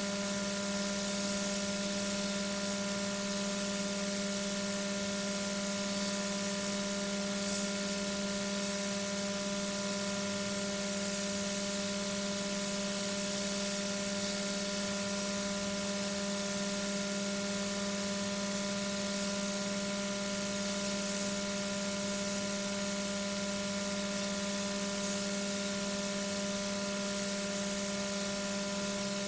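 Steady electrical hum with several overtones and a constant hiss, the noise of a nest-box webcam's microphone and electronics, with a few faint ticks.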